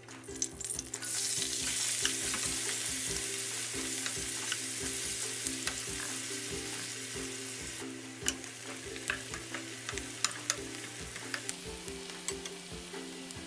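Sliced onions sizzling in hot oil with cumin seeds in a nonstick frying pan. The sizzle starts suddenly and loudly about a second in, as the onions go into the oil, and eases to a steadier frying after about eight seconds. A wooden spoon stirs and knocks against the pan throughout.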